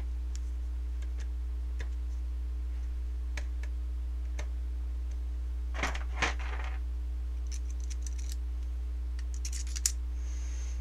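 Scattered light clicks and taps of small metal parts and a black plastic airsoft gearbox shell being handled, with two sharper clicks about six seconds in and a short cluster near the end, over a steady low hum.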